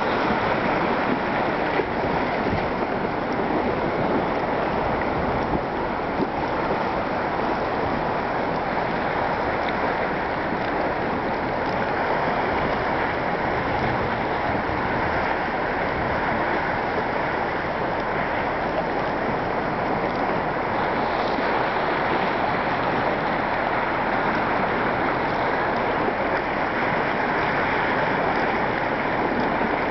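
Small waves on a lake lapping against a rocky shore, with wind, as one steady, unbroken wash of noise.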